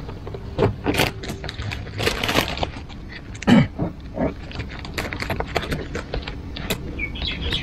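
Vinyl advertising sticker being peeled off a car door's paint: irregular crackling and rustling as the adhesive film pulls away and the loose sheet is bunched in the hand. A soft thump about three and a half seconds in.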